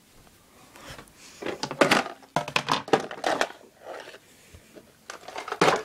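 Close handling noise on the phone's microphone: a quick run of rustling, rubbing scrapes through the middle, then one more short rub near the end, as a fuzzy object is handled right against the phone.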